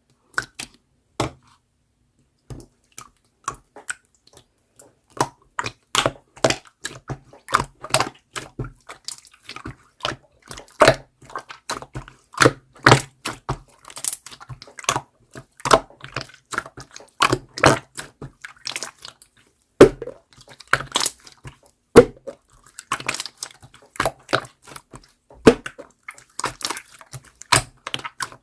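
Clear slime being squeezed, stretched and poked by hand, giving an irregular run of wet clicks and pops, sparse at first and then several a second.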